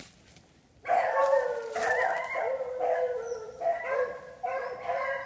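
Several beagles baying together in long drawn-out howling calls that overlap one another, starting about a second in.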